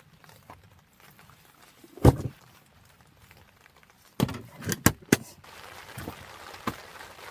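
Irregular knocks and clunks of camping gear being handled while a tent is pitched in the rain: one loud knock about two seconds in, a quick cluster of four or five near the middle, and a couple of fainter ones near the end, over faint rain.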